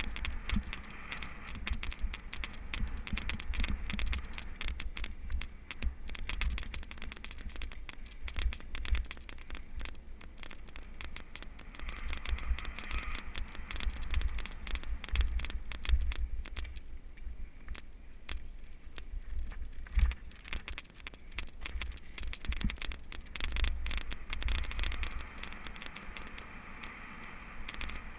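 Mountain bike rolling down a dirt singletrack: tyres crunching and scraping over the dirt, with the bike frame rattling and knocking on every bump over a constant low rumble.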